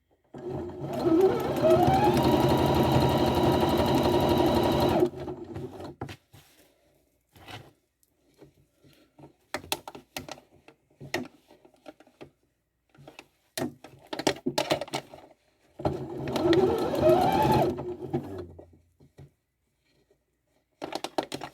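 Electric sewing machine stitching hair tracks onto a wig cap, in two runs: it speeds up with a rising whine and runs steadily for about four seconds, then, after a stretch of scattered clicks, runs again for about three seconds, rising and then slowing down.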